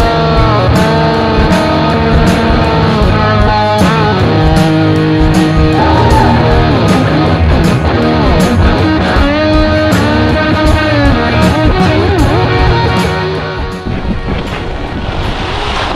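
Background rock music with guitar and a steady beat, dropping in level near the end.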